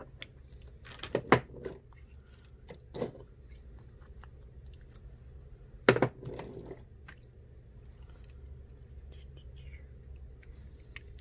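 Scattered clicks and taps of small phone parts and tools being handled during an iPhone screen repair, with sharp clicks about a second in and a louder one around six seconds, over a low steady hum.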